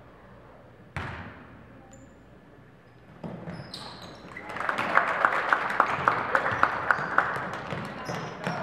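Gym game sounds: a sharp bang about a second in, then a rising din with a rapid run of sharp knocks, about four a second, as play goes on.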